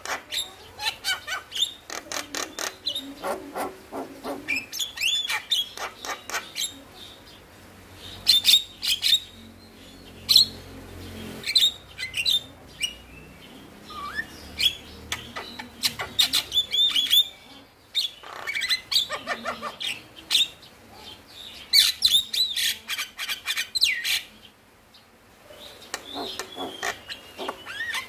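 Male Javan myna singing: phrase after phrase of rapid clicking chatter mixed with short whistled notes, with brief pauses between the phrases.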